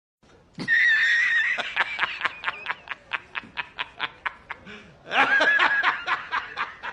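High-pitched snickering laugh sound effect: a long wavering squeal, then quick wheezy "hee-hee" pulses about four or five a second, and a second squeal about five seconds in before the pulses resume.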